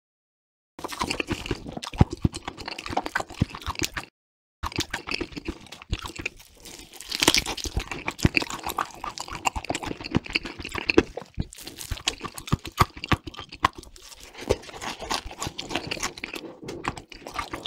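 Close-miked, exaggerated chewing and crunching mouth noises: a dense, irregular run of clicks and crackles starting about a second in, with one short break about four seconds in.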